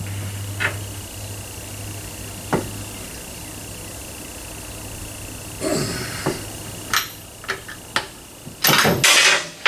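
Hand tools clicking and clanking on a cross-threaded wheel lug nut as it is worked loose, with a loud harsh rattling burst of about a second near the end.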